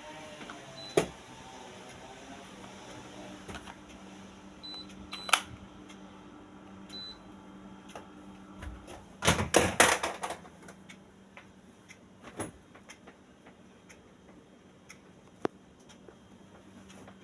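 Electrolux ESM05CRIA1 air conditioner running with a steady low hum. A few short high beeps come about five to seven seconds in, with scattered clicks, and a loud burst of clicking and rattling about nine seconds in.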